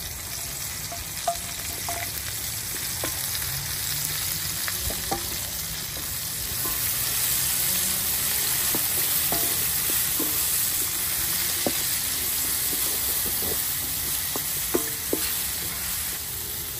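Sliced carrots, bell peppers and broccoli sizzling in hot oil in a wide metal pan, stirred with a wooden spoon that clicks and scrapes against the pan now and then. The sizzle grows a little louder about halfway through.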